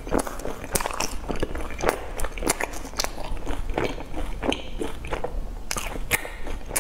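Close-miked chewing of crisp fried food, with irregular crackly crunches as it is bitten and chewed.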